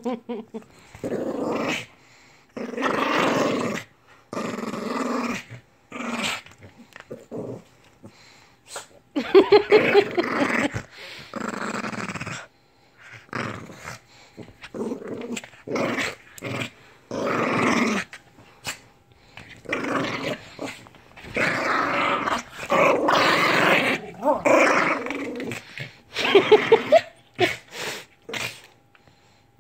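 A Lhasa Apso growling in repeated bursts, each a second or two long with short pauses between, while mouthing and snapping at a person's hand.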